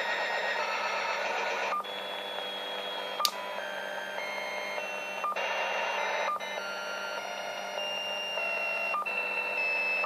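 Radio receiver on the 11-metre CB band putting out a strange noise: several steady tones over hiss that hold and then jump to new pitches, with a sharp click at each change, about five times.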